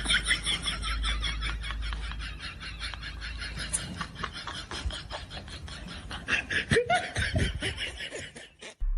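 Laughter in quick breathy bursts, going on for several seconds, with a brief pitched cry about seven seconds in.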